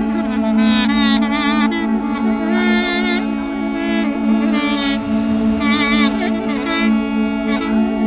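Ensemble of duduks playing together: a melody with wavering, ornamented notes over a steady low drone.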